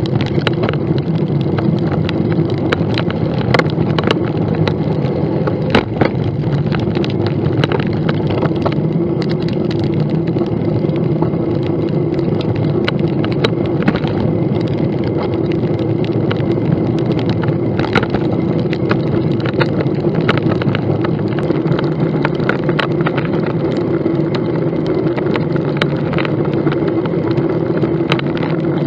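Steady rush of wind and road noise on the microphone of a camera riding on a moving bicycle. Frequent short clicks and knocks run through it.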